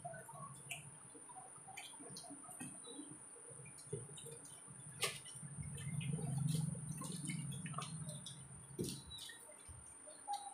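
People eating biryani with their hands: faint chewing and lip-smacking with scattered small clicks. A low hum swells in the middle and fades out about nine seconds in, over a faint steady high whine.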